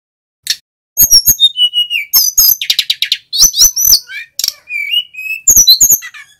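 Male sikatan gunung (a flycatcher) singing a fast, varied song of sharp chips, whistled glides and trills. It starts about a second in after a single short note and runs on almost without a break.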